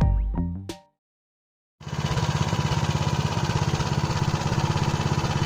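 A Motor Sich walk-behind tractor's engine running with an even, rapid putter. It starts about two seconds in, after the last notes of harmonica-and-guitar music and a brief silence.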